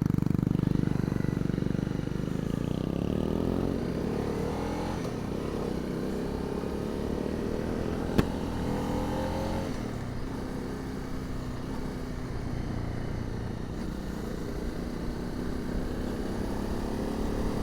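Single-cylinder 250 cc motorcycle engine running under way, heard from inside the rider's crash helmet through the wind noise. Its revs climb twice as it pulls through the gears, and there is one sharp click about eight seconds in.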